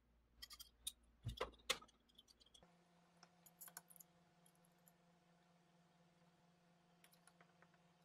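Faint clicks and taps of a hex screwdriver and small metal parts being handled against an aluminium linear module: a handful of sharp clicks in the first two and a half seconds, then only faint scattered ticks over a low steady hum.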